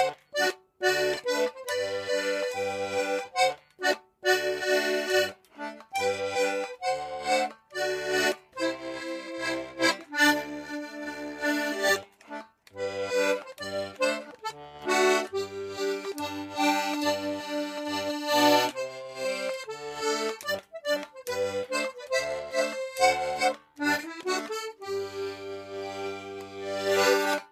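Accordion playing a lively traditional dance tune, the melody over a steady bass-and-chord accompaniment. It ends on a long held chord that cuts off suddenly.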